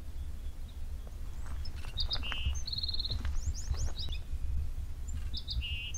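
A small songbird singing the same short song twice, each a quick run of high chips, two brief buzzy trills and a string of fast down-slurred notes, over a steady low rumble.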